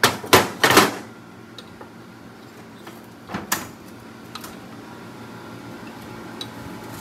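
Metal clunks and clicks from a stripped single-cylinder go-kart engine block and crankshaft being handled on a workbench: several sharp knocks in the first second, another about three and a half seconds in, then a few light ticks.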